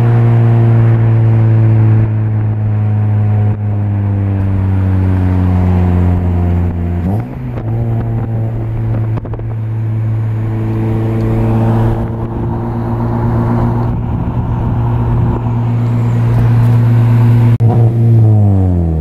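Honda Civic Si engine and aftermarket K-Tuned exhaust at cruise, a steady deep exhaust drone heard from inside the car. The pitch sinks slowly, steps up about seven seconds in and holds, then falls steeply near the end as the revs drop.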